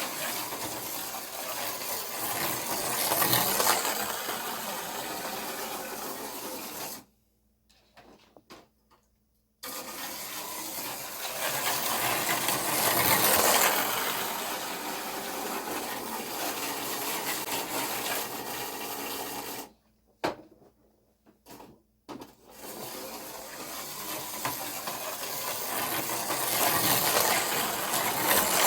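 Micro slot cars running on a plastic track: their small electric motors whirr and rattle, swelling louder as the cars come past. The sound cuts out abruptly twice for a couple of seconds.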